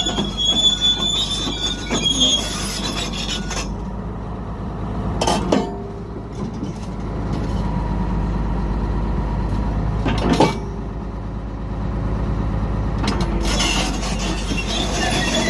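Bulldozer's steel crawler track squealing metal on metal over a steady low diesel rumble, with two sharp metal clanks in the quieter middle stretch. The squeal fades after the first few seconds and returns near the end.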